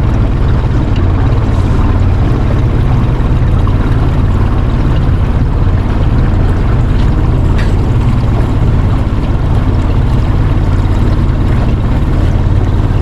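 A loud, steady low rumble with a hiss above it that does not change.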